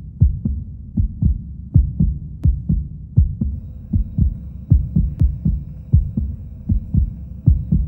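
Heartbeat sound effect: a steady lub-dub of low double thumps, about one pair every three-quarters of a second. A faint steady hum joins about three and a half seconds in.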